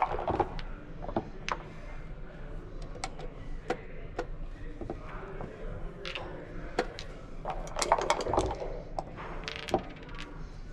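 Backgammon being played: an irregular run of sharp clicks and clacks as plastic checkers are picked up and set down on the board and dice are thrown from a cup. The clacks come thicker about three-quarters of the way through.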